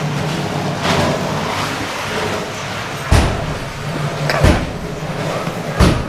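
Three sharp bangs of scrap being handled during demolition work, about a second and a half apart in the second half, over a steady low hum.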